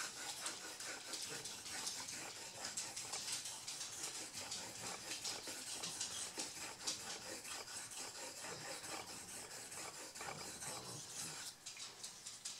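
Straight razor being stroked back and forth flat on a wet sharpening stone: a gritty scraping of steel on stone through the slurry, stroke after stroke, easing off near the end as the blade is lifted.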